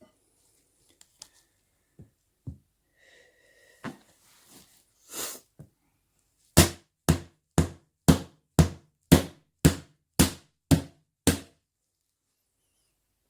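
A few light knocks and a short hiss, then ten loud, evenly spaced hammer blows at about two a second.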